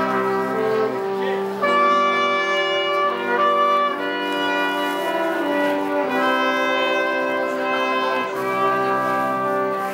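Brass ensemble playing slow, held chords in the open street, the chords changing about every two seconds.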